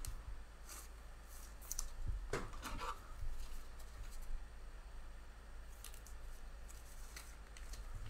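A trading card being put into a plastic sleeve and a hard plastic card holder: faint plastic rustling, sliding and small clicks, with a louder scrape about two and a half seconds in.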